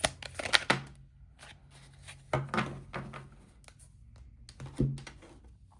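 Tarot cards being handled and laid down on a table: a quick run of clicks and taps in the first second, then a few scattered soft thuds.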